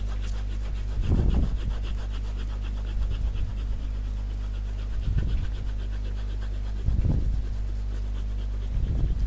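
Scratchy back-and-forth strokes of a colouring pen on paper. Low breath-like puffs on the microphone come about every two seconds, over a steady electrical hum.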